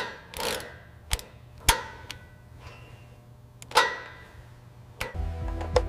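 Scattered sharp mechanical clicks and taps, about five of them at uneven spacing, the loudest near the end, over a low steady hum. A fuller bed of background music comes in near the end.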